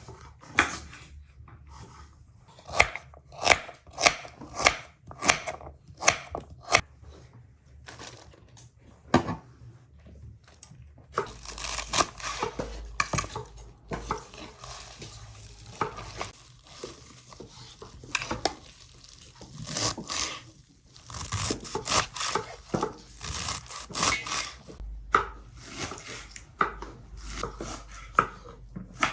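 Food-preparation sounds: a long series of sharp knocks in irregular runs, as of a knife chopping on a cutting board, with dishes clattering.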